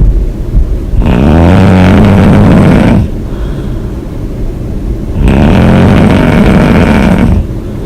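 A woman snoring hard: two loud snores of about two seconds each, the first about a second in and the second just past the middle, with quieter breathing noise between them.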